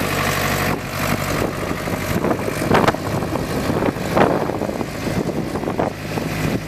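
Ford 555C backhoe's diesel engine running under load while plowing snow, with a noisy rasp and two louder surges about three and four seconds in.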